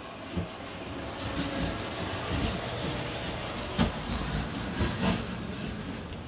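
Handling noise from a phone: fingers rubbing over the phone and its microphone, with a couple of sharp knocks.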